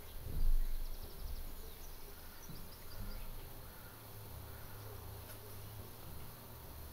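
Outdoor ambience: faint, short bird chirps over a steady low rumble, with a louder low thump about half a second in.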